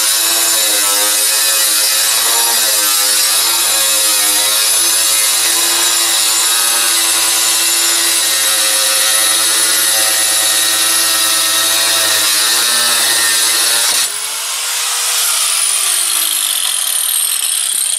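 A power tool cutting through a corrugated asbestos-cement (slate) sheet, its motor pitch wavering under load. About fourteen seconds in the cutting stops and the motor winds down with a falling whine.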